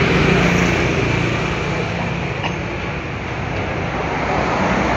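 Steady background engine noise, with a single light click about two and a half seconds in.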